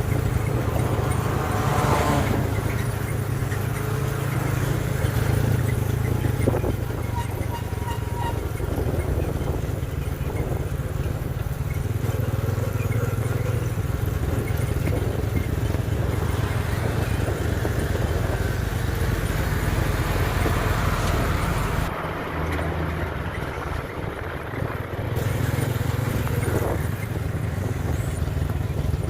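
Motor vehicle engine running steadily on the move, with road and wind noise, easing off briefly about three quarters of the way through before picking up again.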